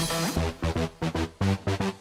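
Electronic background music with a choppy, stop-start beat.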